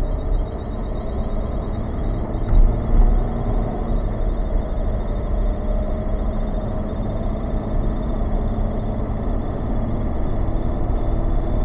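Vehicle engine and road rumble heard from inside the cab as the vehicle speeds up from walking pace to about 20 mph, with two thumps about two and a half to three seconds in.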